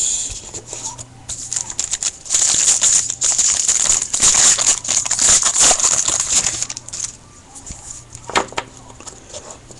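Foil trading-card pack wrapper crinkling as it is handled and opened by hand: a dense crackle starting about two seconds in and lasting several seconds, then quieter rustling of cards.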